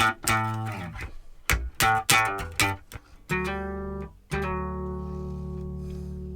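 Electric bass guitar played through a Gallien-Krueger PLEX preamp pedal: a quick run of plucked notes, then a low note held from about halfway through, struck again once and left ringing.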